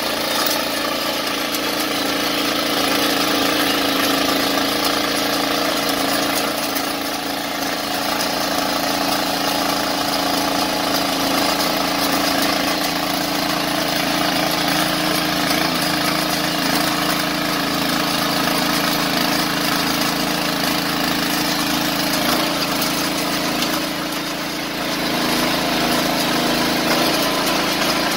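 An engine running steadily at an even speed, dipping slightly in loudness twice.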